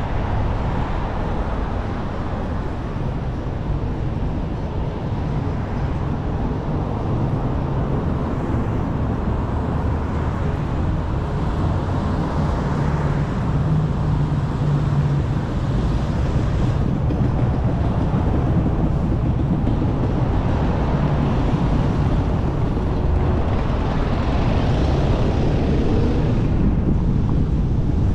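Steady road and traffic noise from a car driving along a city street: a low rumble of tyres and engines.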